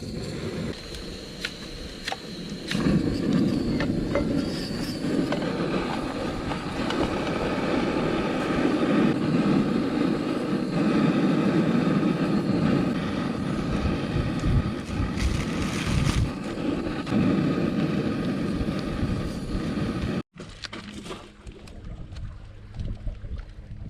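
Motorcycle running at a steady speed, its engine note mixed with heavy wind rush on the microphone. It cuts off abruptly about twenty seconds in, giving way to a quieter low, steady hum.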